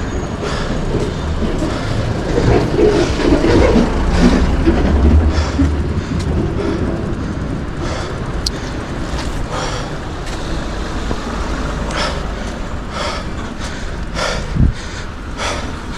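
A motor vehicle passing on the road, its engine rumble loudest a few seconds in. Later comes a cyclist's hard breathing from the hill climb, about one breath a second.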